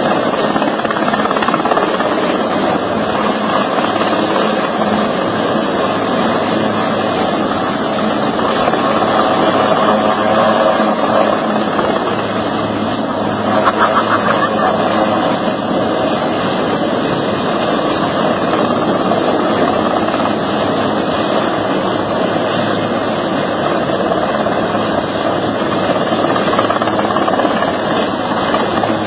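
Helicopter running steadily, its engine and rotor making a loud, unbroken drone with a low hum.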